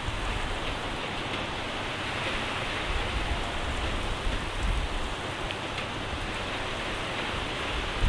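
Steady rain falling on a wet, puddled road surface: an even hiss, with a few faint low rumbles.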